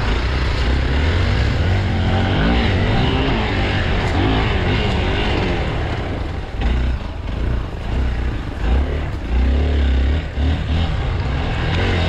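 Off-road motorcycle engine running and revving up and down as the bike rides over rough, grassy ground, its pitch rising and falling with the throttle, with rushing noise over the engine.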